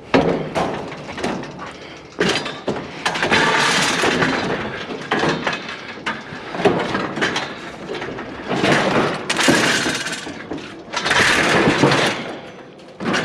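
Clattering, knocking and scraping of a heavy scrap item being shifted and stood upright on a trailer, with several sharp knocks between longer rough scraping stretches.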